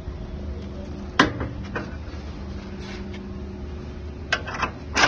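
Stainless-steel parts of a vertical form-fill-seal powder packing machine clanking as they are handled by hand: a sharp clank a little over a second in, a lighter one soon after, and three quick clanks near the end, over a steady low hum.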